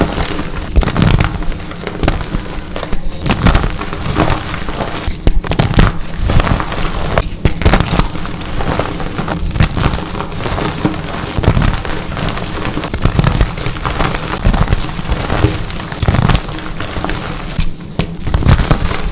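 Dyed gym chalk being crushed and crumbled up close, a dense, crunchy crackling with soft thuds as the pieces break apart.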